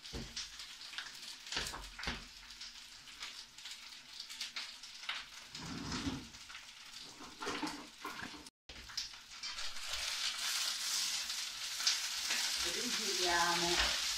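Leafy greens sizzling in olive oil in a frying pan, the sizzle growing louder and steadier over the second half, preceded by scattered clicks and knocks of kitchen utensils being handled.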